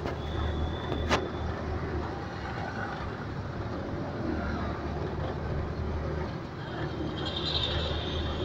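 Auto-rickshaw engine running steadily on the move, heard from inside its open cabin with road and traffic noise around it. There is a sharp knock about a second in, and a thin high tone near the end.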